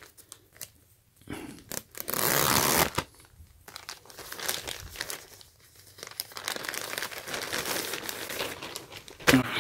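White plastic poly mailer being torn open along its tear strip, with the loudest rip about two seconds in, followed by plastic crinkling as a tee shirt in a clear zip bag is pulled out of the mailer.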